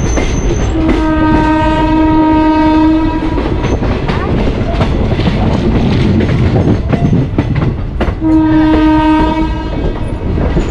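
Moving passenger train rumbling and clattering over rail joints, with a train horn sounding twice: a long blast about a second in and a shorter one near the end.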